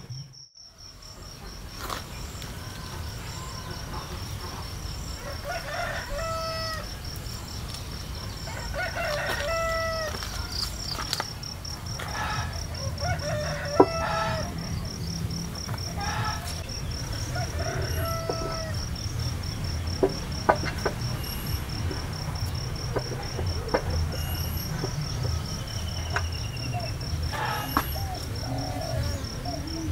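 Chickens calling again and again over a steady, high, pulsing insect trill, with a few sharp clicks along the way.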